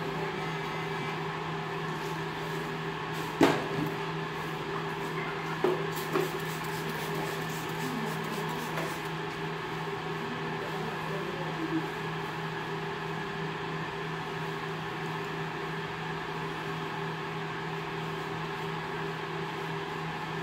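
Steady machine hum made of several pitched tones, with a few sharp knocks: one about three and a half seconds in, two around six seconds, and a lighter one near twelve seconds.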